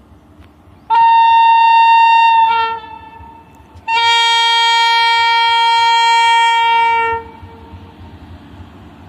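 Indian Railways electric locomotive sounding its horn as it approaches: two long blasts, the second about twice as long as the first, over the low rumble of the oncoming train.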